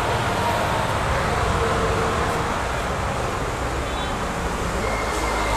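Steady low rumble and hiss of background noise, with a faint thin high tone joining near the end.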